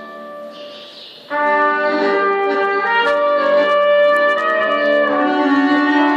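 Klezmer trio of trumpet, clarinet and accordion playing a tune. Quiet held notes at first, then the band comes in loudly about a second in, with the trumpet leading the melody.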